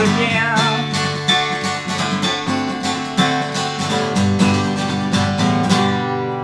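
Acoustic guitar strumming the closing bars of a country song, ending on a final chord left ringing near the end.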